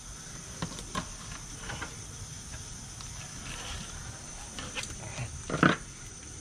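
Fillet knife cutting the rib cage out of a mutton snapper fillet on a plastic cooler lid: quiet scraping with a few soft clicks, and one louder knock a little over five seconds in.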